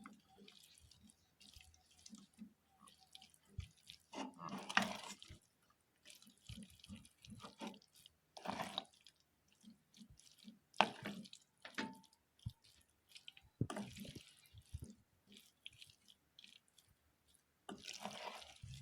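A spoon stirring pasta into a vegetable sauce in a pot: irregular wet squelches and scrapes, one every second or so.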